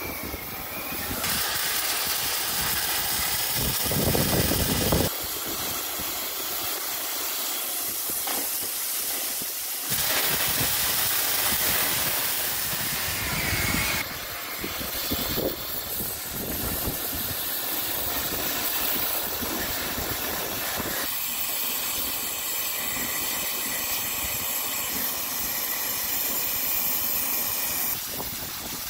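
Oxy-LPG cutting torch hissing steadily as it cuts through thick steel bucket plate. The hiss changes level and tone abruptly every few seconds.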